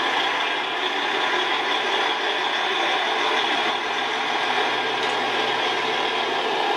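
Heavy-haulage lorry's diesel engine running at low speed while it pulls a heavy low-loader, with a steady, even rush of traffic noise.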